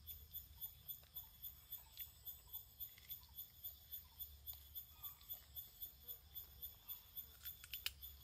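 Forest insects chirping faintly in a steady, high-pitched pulse, about three pulses a second. A few sharp clicks near the end.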